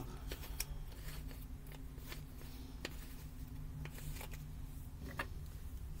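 Scattered small clicks and light scraping as a flashlight's bottom end cap is twisted off by hand, over a steady low hum.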